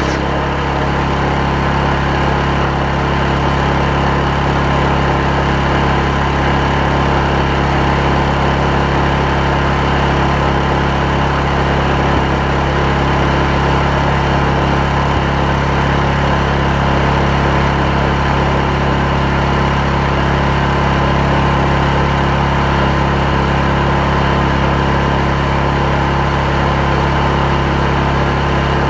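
Chainsaw engine running steadily at high revs without a break, cutting a log lengthwise into lumber.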